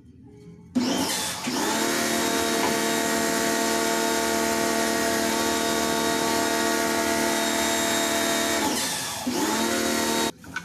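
An electric motor spins up about a second in and runs with a steady, loud hum. Its speed dips and recovers briefly near the end, and it cuts off suddenly.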